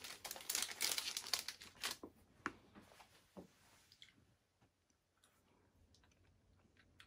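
A chocolate bar's wrapper crinkling and rustling for about two seconds as it is handled and pieces are broken off, then a few scattered small clicks that fade out.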